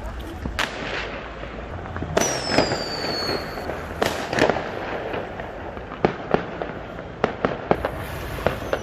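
Fireworks going off: a string of sharp bangs and pops at irregular intervals over continuous crackling, with a whistle falling in pitch about two seconds in.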